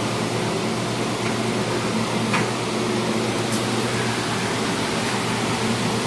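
Steady machine hum and hiss, with a low even drone, of the kind that air conditioning or a fan makes in a small room. Faint brief rustles of the embroidered fabric being handled come about two and three and a half seconds in.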